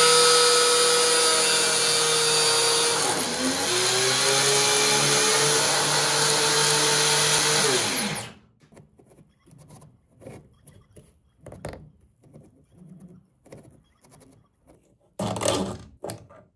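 Small electric motor driving a belt-driven test rig for a 3D-printed clutch, running with a steady high whine. About three seconds in, the pitch dips sharply and recovers a little lower. About eight seconds in, the motor is switched off and winds down quickly. After that come faint clicks of handling, with a brief louder clatter near the end.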